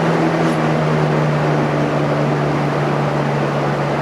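1979 Kmart 'Kool One' box fan with a McMillan motor running on medium speed: a steady motor hum under the rush of air from its blades. The hum thins out a little about halfway through as the fan settles to the lower speed.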